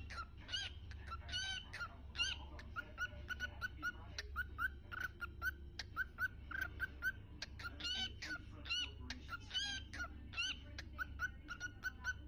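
Small pet parrots chirping: a flock of short, repeated chirps, several a second.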